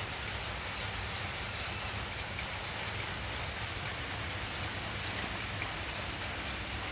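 Steady hiss of rain. Faint high chirps come in a short run near the start and again in the second half.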